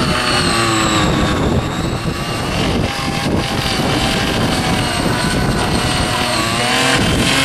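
Small engine of a foldable mini power tiller running hard, its pitch wavering and rising near the end.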